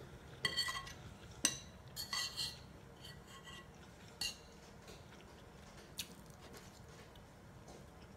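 Metal spoon clinking and scraping against a bowl while scooping rice, with several short ringing clinks in the first four seconds or so, then mostly quiet apart from one faint tick about six seconds in.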